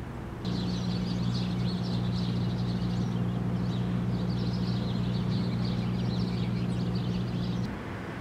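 Small birds chirping rapidly over a steady low hum; both start suddenly about half a second in and cut off together near the end.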